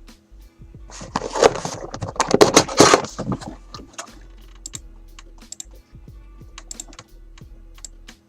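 Crinkling and tearing of a trading-card pack wrapper for about two seconds, followed by scattered light clicks from the cards being handled.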